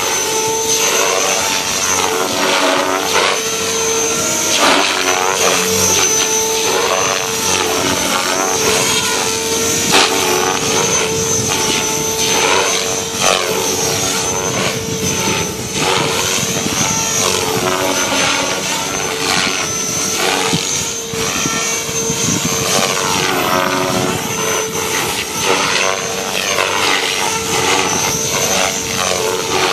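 Devil X360 electric RC helicopter flying light 3D manoeuvres: a steady rotor drone with a high motor whine on top, its pitch repeatedly rising and falling as the model swoops and turns.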